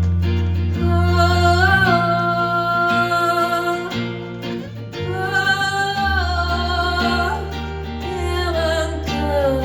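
Live acoustic band performance: acoustic guitar playing under a singer holding two long sung notes that waver with vibrato as they end, over low sustained bass notes.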